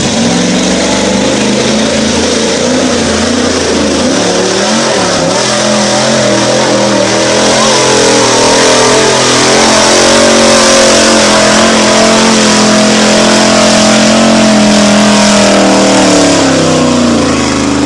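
Mud-bogging pickup truck's engine revving hard as it plows through a mud pit. The revs climb at the start, hold high and steady for most of the run, then drop a second or two before the end, over the hiss of spraying mud.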